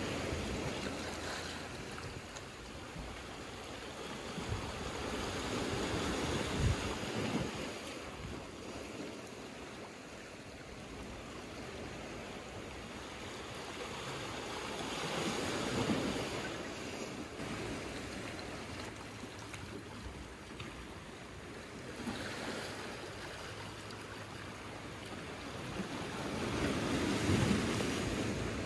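Small waves washing in over rocks and a pebble shore: a steady wash of surf that swells with each wave, four times, then ebbs.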